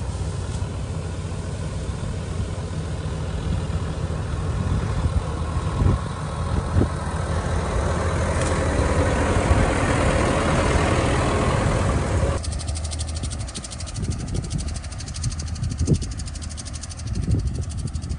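John Deere 6230 tractor's diesel engine running, growing louder as the tractor passes close by about ten seconds in. About twelve seconds in the sound cuts abruptly to a quieter, more distant engine.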